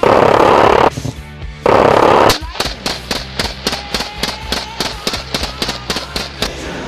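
Two short bursts of anti-aircraft autocannon fire, each under a second, then a rapid string of AR-15-style rifle shots at about five a second. Background music runs underneath.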